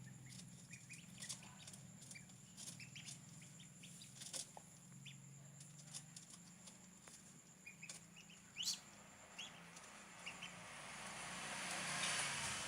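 Newly hatched chicks peeping faintly in short, scattered chirps over a low steady hum.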